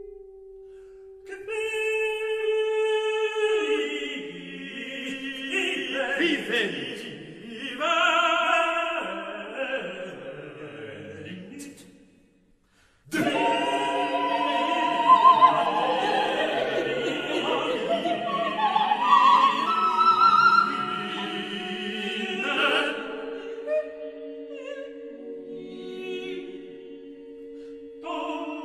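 Unaccompanied choir singing dense, dissonant modernist polyphony: held chords and sliding, overlapping lines. It breaks off for about a second of silence near the middle, then resumes thickly and thins to a few held notes near the end.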